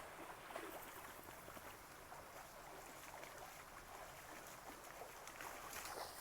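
Faint water sounds of a dog wading and splashing in a river, small scattered splashes over the low rush of the flowing water.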